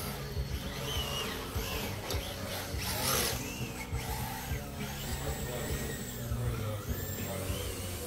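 Music playing over the high-pitched whine of electric RC drift car motors rising and falling in pitch as the cars speed up and slow down, with a brief hiss about three seconds in.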